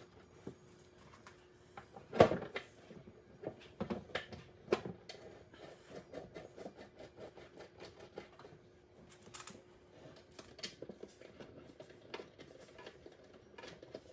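Scattered clicks and knocks of flat-pack bench parts and hardware being handled and fitted together, with a loud knock about two seconds in and another near five seconds. A faint steady hum runs underneath.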